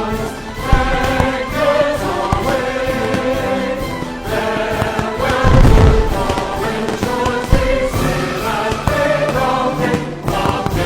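Music with singing voices, over heavy low thuds, the loudest about six seconds in.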